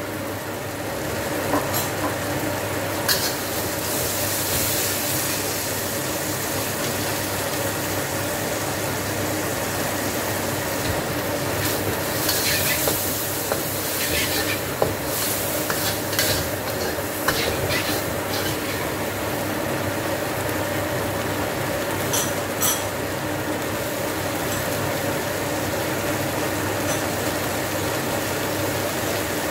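Garlic, ginger, fermented shrimp and sliced green chilies sizzling in a wok as a stainless steel spatula stirs and scrapes, with scattered clicks of metal on the pan. A fan hums steadily underneath.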